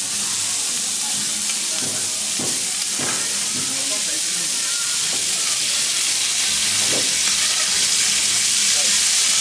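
Food sizzling as it cooks: a steady, high hiss, with a few faint knocks.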